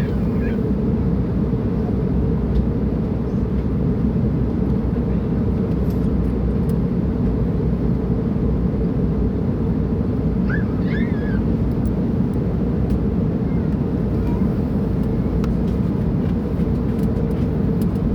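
Steady low drone inside an airliner's passenger cabin in flight: engine and airflow noise, even and unchanging, with its weight in the low end.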